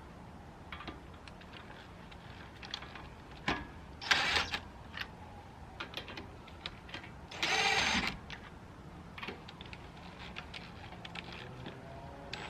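Ratchet wrench with a 21 mm socket clicking as lug nuts are lightly run down onto the wheel studs. Scattered clicks, with two short louder rattles about four seconds and seven and a half seconds in.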